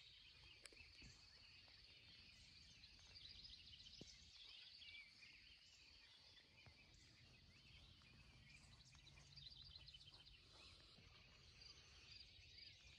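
Faint birdsong: several birds chirping and trilling over a low, steady background rumble.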